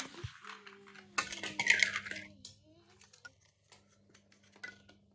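Plastic Lego bricks clicking and clattering as they are handled. A louder burst of rattling comes about a second in, followed by scattered light clicks.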